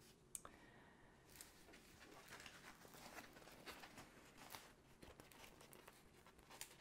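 Faint rustling and crinkling of a rolled diamond-painting canvas and its plastic release film as hands unroll and handle it, in many small scattered ticks with a sharper click near the start.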